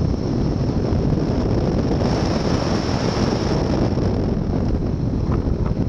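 Steady, loud rush of airflow buffeting the microphone of a camera mounted on a hang glider in flight.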